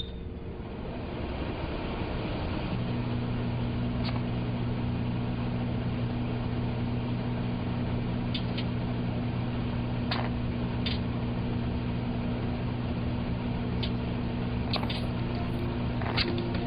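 Microwave oven running with a steady hum that steps up about three seconds in, and a flip phone inside it giving off scattered sharp crackles as the metal arcs.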